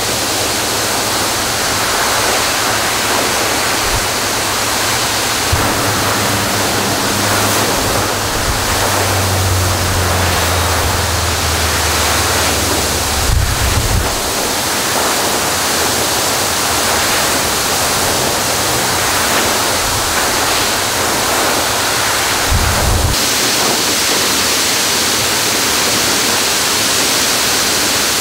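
Water from a knocked-off fire hydrant blasting straight up in a tall geyser and showering back down, a steady loud rush. A low hum rises underneath for a few seconds in the middle.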